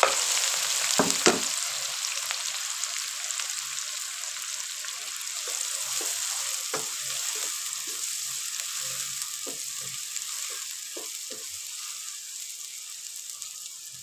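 Chopped onions sizzling in hot ghee, loudest just after they go in and gradually settling down, with a wooden spatula scraping and knocking against the pan as they are stirred.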